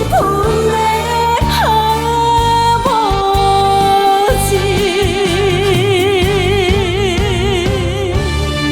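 A woman singing the closing line of a Korean ballad over band accompaniment, sliding between sustained notes and ending on a long held note with vibrato.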